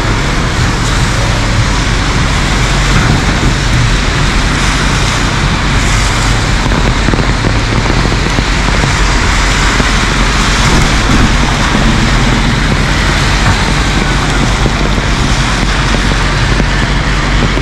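Heavy rain falling steadily, an even hiss, over city street traffic with a low engine hum underneath.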